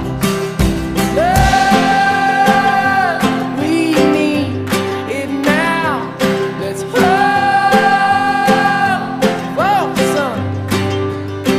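Background music: an acoustic folk-pop song with strummed guitar and long, held sung notes.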